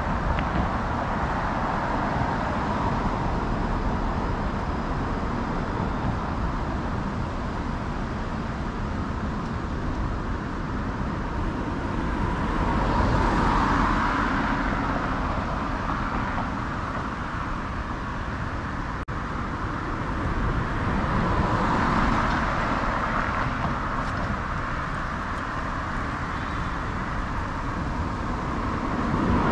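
City street traffic: a steady hum of cars on the road, with two vehicles passing close by, one about halfway through and one about two-thirds of the way in.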